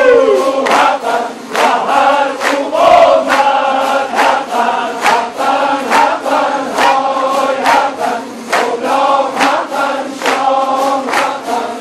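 A large ensemble of tanburs, the long-necked Kurdish lute, strummed together in a steady driving rhythm while the players sing as a chorus.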